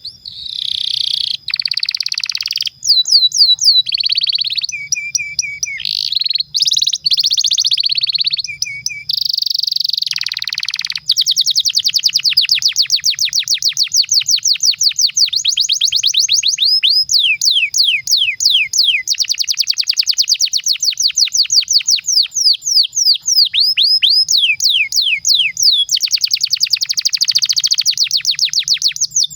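Domestic canary singing a long, varied song. Buzzy trills and tours come first, then from about a third of the way in a long roll of rapid, repeated downward-sliding notes, closing with a buzzy trill.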